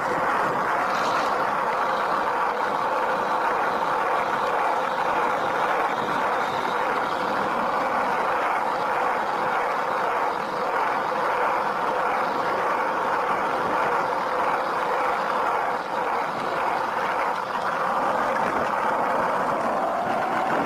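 Skateboard wheels rolling on asphalt: a steady, even rolling noise that holds at one level throughout.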